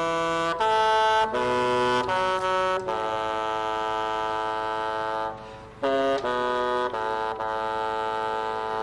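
Bassoon played solo: a slow melody of long held notes, with a short break just past halfway.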